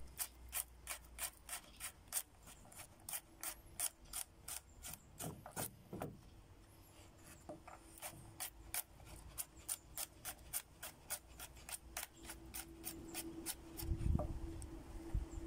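Chef's knife chopping peeled garlic cloves on a wooden cutting board: a steady, quick run of blade taps on the board, about three or four a second, with a heavier knock near the end.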